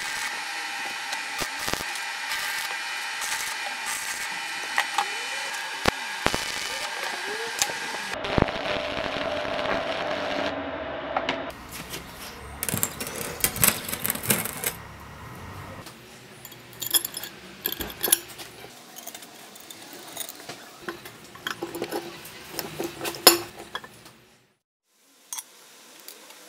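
Stick arc welding crackles and hisses steadily for about eight seconds. After that come scattered sharp metallic clinks and taps, like metal parts being handled and set down.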